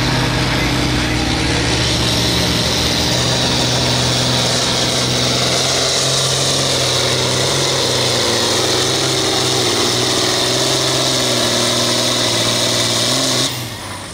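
John Deere 4020 hot stock pulling tractor's diesel engine running flat out under full load while pulling the sled. Its pitch sags slightly toward the end, then drops off suddenly near the end as the throttle is shut at the end of the pull.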